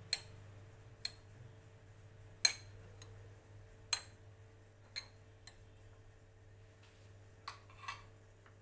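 Metal spoon clinking against a glass mixing bowl while stirring a soft mixture, about eight sharp clinks at irregular intervals. The loudest comes about two and a half seconds in.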